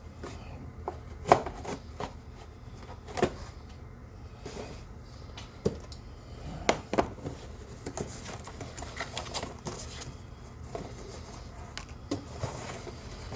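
Scattered clicks, knocks and light rustling of a small LED clamp light being handled and taken out of its plastic packaging. The loudest knock comes about a second in.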